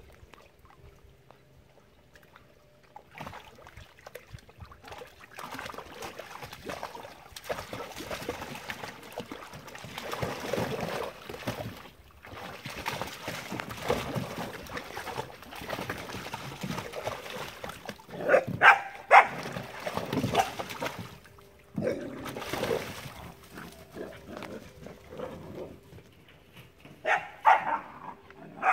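Puppies splashing about in a plastic wading pool of water, with a cluster of sharp, high puppy barks about two-thirds of the way through and a few more near the end.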